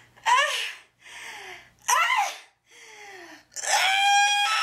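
A woman's short, sharp gasping cries with quieter breaths between them, then a long, held scream starting near the end.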